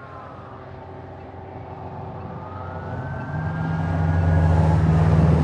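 Emergency vehicle approaching with its siren on a slow wail: the pitch falls at the start, rises about two seconds in, holds, then falls again near the end. Its engine grows much louder from about three seconds in as it draws near.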